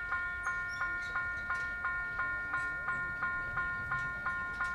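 Autotrol level-crossing bell ringing at a steady pace of about three strokes a second, each stroke ringing on into the next: the crossing's warning is active.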